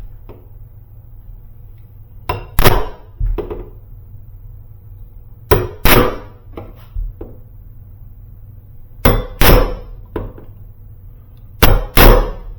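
Hammer blows on a hollow metal door: four groups, each of about two sharp strikes with a brief ring, about three seconds apart.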